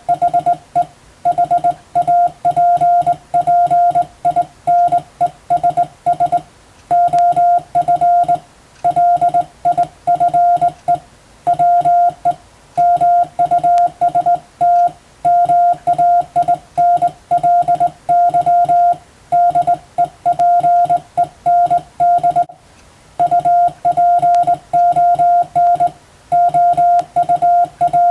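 Morse code (CW) keyed by hand at a steady pace: a single tone of about 700 Hz switched on and off in dots and dashes, sending practice telegram text in English letters.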